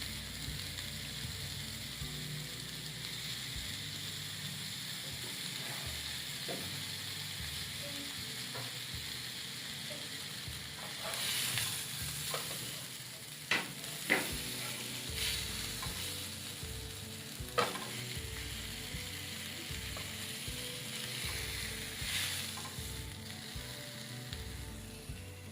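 Beef steak sizzling as it fries in a pan: a steady hiss that swells now and then, with a few sharp clicks in the middle.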